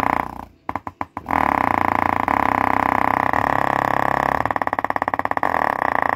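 A small 4-inch subwoofer driver pushed hard on a bass track, its cone making large excursions and giving a loud buzzing drone. The sound stutters on and off briefly near the start, then holds steady, with a rapid pulsing about two thirds of the way through.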